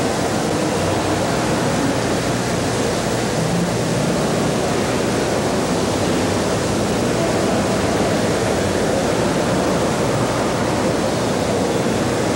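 Steady, loud hiss with a faint low hum under it, cutting off suddenly at the end.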